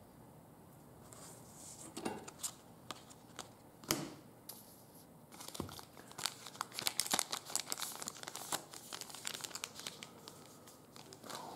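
Plastic trading-card pack wrapper being handled and torn, crinkling: a few scattered crackles at first, then dense crinkling through the second half.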